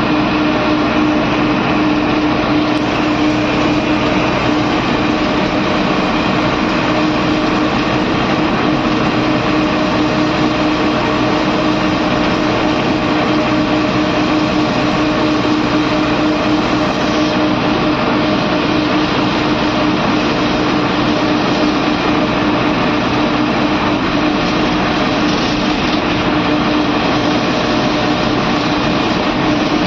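Bus engine and road noise heard from inside the driver's cab while driving along: a loud, even drone with a steady hum running through it.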